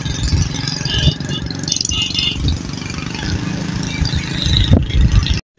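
Road noise from a moving vehicle in traffic, with wind rumbling unevenly on the microphone. It cuts off suddenly near the end.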